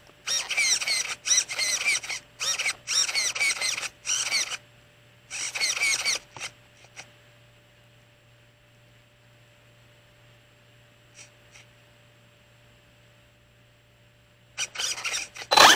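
RC car's electric motor and gears whirring in short throttle bursts while the crashed car sits stuck in tall grass. The bursts come rapidly for the first few seconds and again briefly at about five and a half seconds, then stop. After a quiet stretch with a faint steady whine, a last, louder cluster comes near the end.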